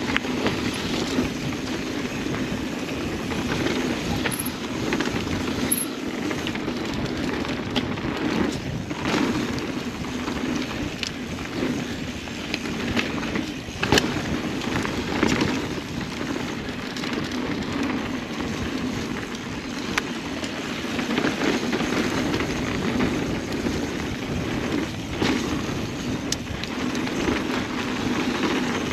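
Mountain bike rolling fast down a dirt trail: steady tyre noise with the bike rattling and clattering over the bumps, and sharp clacks now and then, the loudest about fourteen seconds in.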